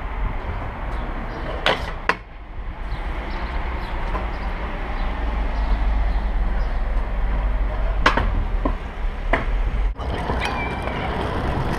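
Stunt scooter wheels rolling over pavement, with a steady low rumble and several sharp clacks of the scooter hitting the ground.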